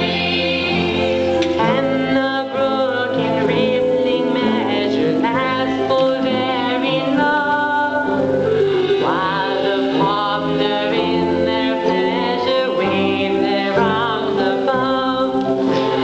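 Stage cast singing an operetta chorus in mixed voices, with instrumental accompaniment.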